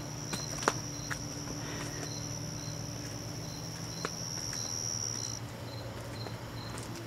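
Evening insect chorus of crickets: one insect chirps steadily about twice a second, while a continuous high trill stops about five seconds in. A few soft clicks sound over it.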